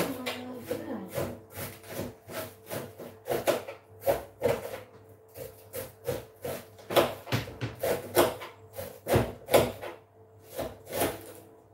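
A knife chopping a cabbage on a plastic chopping board: an irregular run of sharp cuts, about two to three a second.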